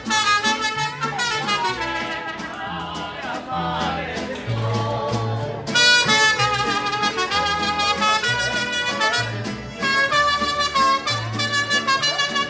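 Mariachi band playing, trumpets carrying the melody over a moving bass line.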